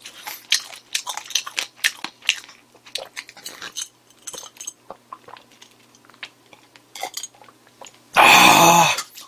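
A man gulping down a drink from a glass, a run of swallowing and mouth sounds, then a single loud, breathy "ahh" exhale after the drink about eight seconds in.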